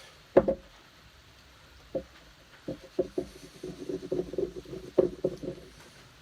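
Axe and sharpening stone handled during sharpening: a loud knock about half a second in, a few separate knocks, then a quick run of light knocks and clatter past the middle.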